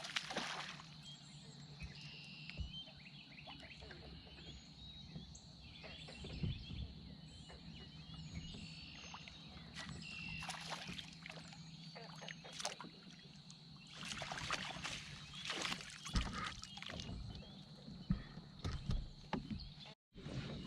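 Fishing kayak on the water: scattered knocks and rustles of gear against the hull and water movement over a steady low hum, with faint bird chirps in the background.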